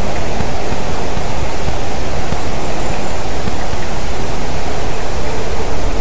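Steady, loud rushing noise picked up by a treetop nest camera's outdoor microphone, even throughout, with no bird calls standing out.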